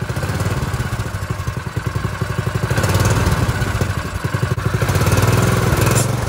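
Predator 212 single-cylinder four-stroke engine on a go-kart running and revved twice with the throttle, about three and five seconds in. As it revs, its centrifugal clutch engages and slings the loose drive belt.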